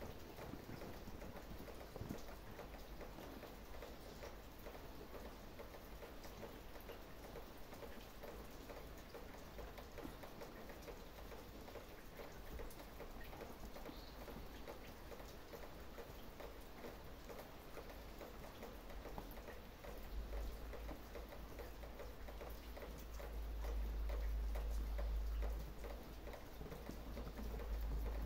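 A cat digging and pawing at a satin cloth: faint rustling and scratching with many small ticks. A low rumble comes in about two-thirds of the way through and grows louder near the end.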